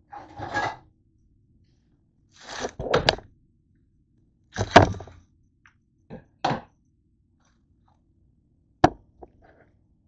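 Onions being handled on a kitchen counter: five short bouts of rustling and scraping in the first seven seconds, then a sharp knock near the end.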